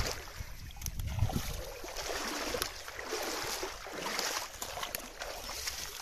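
Water splashing and lapping, with low rumbling bursts in the first second and a half.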